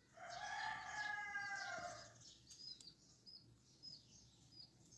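A rooster crowing once, faintly, one call of about two seconds near the start, followed by small birds chirping at intervals.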